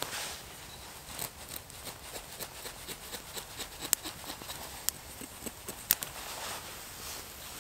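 A knife cutting and splitting small dry sticks, heard as short scrapes and light ticks, with a sharp crack every second or so from the wood and the fire burning in a small folding wood stove.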